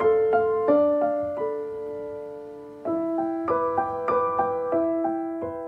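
Background solo piano music: a gentle melody of struck notes and chords, each note ringing and fading.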